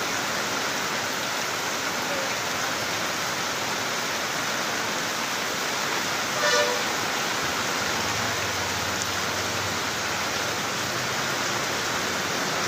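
Heavy rain pouring steadily onto waterlogged streets, a constant hiss. About six and a half seconds in, a single short vehicle horn toot cuts through it.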